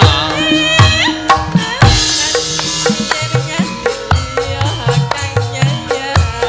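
Javanese gamelan music: many sharp hand-drum strokes over held, ringing pitched tones, with sliding melodic notes about the first second.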